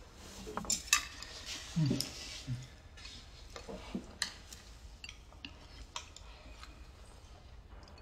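Chopsticks clicking and tapping against porcelain rice bowls and plates at a meal: light, scattered clinks, a few a little louder near the start and around two and four seconds in.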